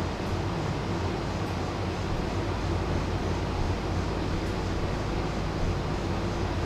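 Steady low machine hum with an airy hiss, unchanging throughout, with a few faint ticks.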